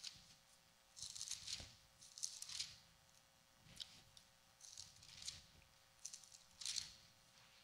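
Faint rustling of Bible pages being turned, a series of short papery swishes about a second apart, over a faint steady hum.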